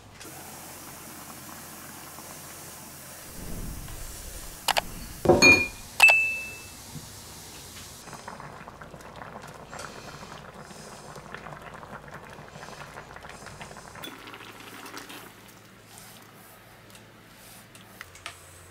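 Fish curry simmering with a steady hiss under a glass lid, then a few sharp clinks of the lid against the pan about five to six seconds in, the last one ringing briefly. After that come quieter crackling and spoon sounds from the open pan as the curry is stirred.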